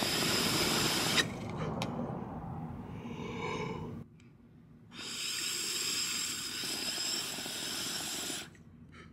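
Glass dab rig being pulled on, air hissing through the carb cap and water pipe in two long draws with a short break about four seconds in. A single light click comes about a second in.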